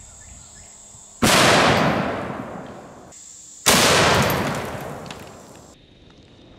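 A .700 Nitro Express double-barrel elephant rifle firing: a very loud, sudden blast with a long fading echo, heard twice about two and a half seconds apart. Between the two, the crickets' steady high trill briefly returns, so the second blast is the same single shot replayed.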